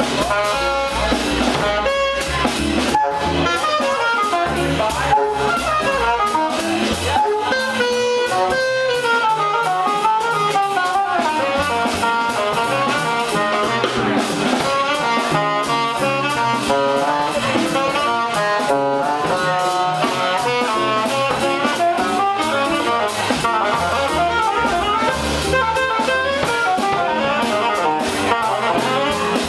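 Live jazz combo playing: a saxophone plays a flowing line over hollow-body electric guitar, upright double bass and drum kit with cymbals.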